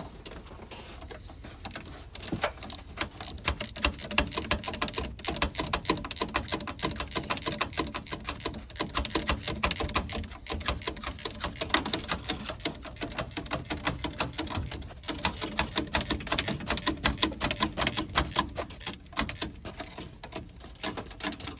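Flex-head ratchet clicking in rapid runs while 8 mm bolts holding the A/C condenser to the radiator are backed out, with short pauses between runs.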